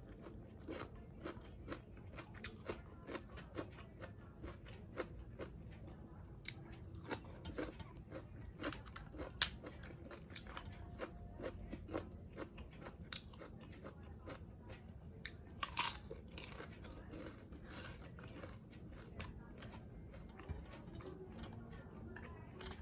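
A person chewing and biting crunchy food in irregular crackly crunches, with one sharp crunch about nine seconds in and a louder burst of crunching near sixteen seconds.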